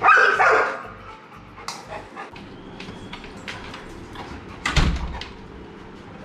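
Labrador retriever giving a loud, pitched whining cry at the start, then scattered small clicks and a single heavy thump about five seconds in.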